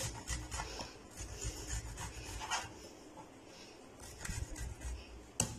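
Garlic clove grated on the fine side of a small metal box grater: quick scraping strokes that ease off midway, then pick up again, with a sharp tap near the end.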